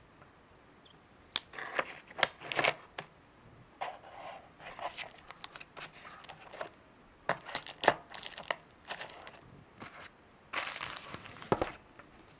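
Clear plastic wrapping crinkling and rustling around metal belt buckles as they are handled in a cardboard gift box, with sharp clicks and taps. It comes in several bursts with short pauses between.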